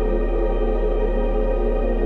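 Psy-ambient electronic music: layered, held tones over a steady deep bass drone.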